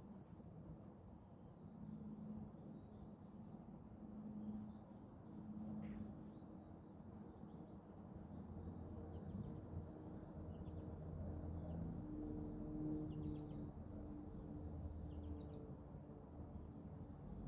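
Small birds chirping faintly, many short calls throughout, over a low steady rumble that grows somewhat louder in the second half.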